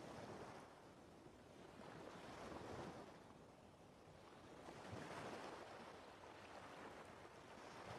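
Faint wash of ocean waves, swelling and fading every two to three seconds.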